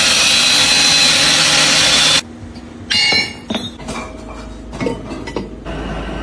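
Power tool grinding metal, a loud hissing rasp with a high ringing edge for about two seconds that cuts off suddenly. A shorter burst follows, then scattered metallic clinks and knocks over a low hum.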